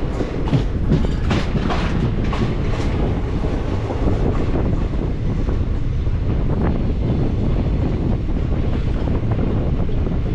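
Passenger train running along the track: a steady rumble, with the wheels clacking over rail joints in a quick run during the first three seconds and now and then after.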